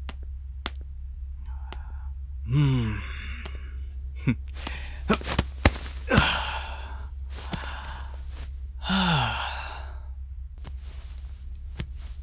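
A person sighing twice, about two and a half seconds in and again about nine seconds in, with a few soft knocks and a rustle of bedding about six seconds in as someone climbs onto a bed, over a steady low hum.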